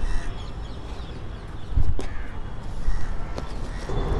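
Crows cawing a few times in the background over a low rumble, with a few knocks from soil and a carton being handled close to the microphone.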